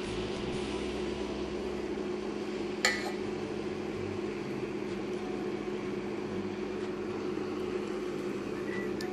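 Steady electric hum of a Geepas electric cooktop running under a pot, with one short click about three seconds in.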